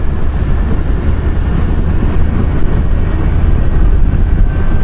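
Kawasaki Versys 1000 motorcycle on the move, heard from the rider's helmet microphone: a steady rush of wind and road noise with the bike's drone underneath.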